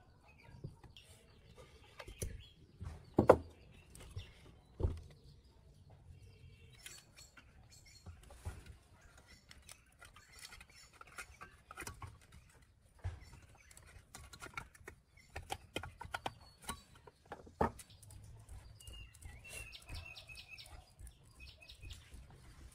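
Scattered knocks, clicks and scrapes of metal engine parts and hand tools being handled and fitted on a small gasoline engine, the loudest knocks about three and five seconds in. Birds chirp in the background.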